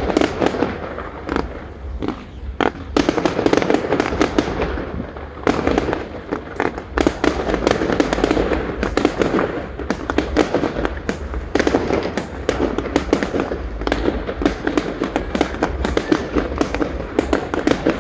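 Aerial fireworks exploding in quick, irregular succession, dense volleys of bangs and crackles with brief lulls around two and five seconds in, over a constant low rumble.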